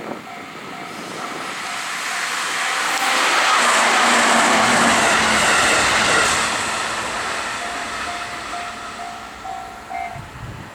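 A train passes through a level crossing. Its running noise swells to a peak about four to six seconds in, then fades away. The crossing's warning bell rings in a steady repeating ding before the loudest part and again after it, stopping about ten seconds in.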